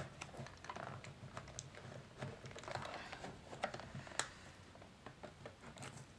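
Craft knife scoring and cutting along the perforated line of a toy's cardboard-and-plastic blister pack, making faint, irregular small clicks and scratches, with a sharper click about four seconds in.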